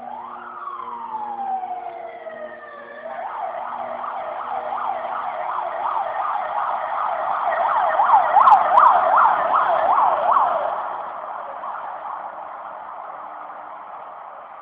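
Emergency-vehicle siren: one long falling wail over about three seconds, then a fast rising-and-falling yelp about twice a second, loudest a little past the middle, easing off after about eleven seconds. Under it, in the first few seconds, a steady buzzing hum from a drone.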